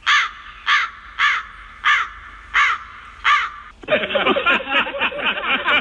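Crow-cawing comedy sound effect: six harsh caws, a little over half a second apart. About four seconds in, it gives way to a dense run of quick, squeaky chattering.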